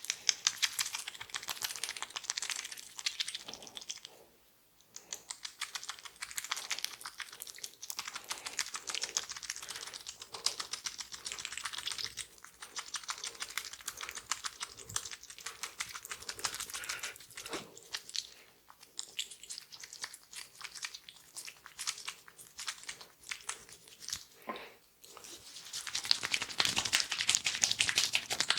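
Oiled hands massaging the neck and scalp close to the microphone: dense, rapid wet crackling and squelching of skin and hair. It comes in stretches with brief pauses and is loudest near the end.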